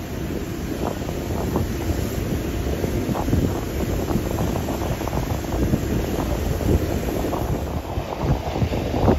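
Wind buffeting the microphone: a steady, rough rumble that flutters irregularly.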